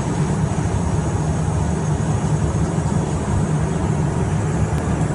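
Steady in-flight cockpit noise of a Cessna Mustang C510 light jet, its twin Pratt & Whitney PW615F turbofans and the airflow heard from inside the cabin. It is a constant low rumble with a faint, steady high whine on top.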